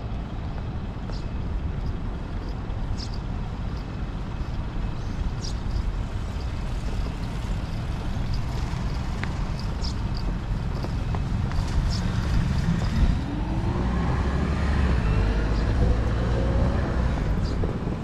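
Road traffic at a city intersection: a steady low rumble of vehicle engines and tyres. Past the middle, one vehicle accelerates away with its engine note rising for a few seconds.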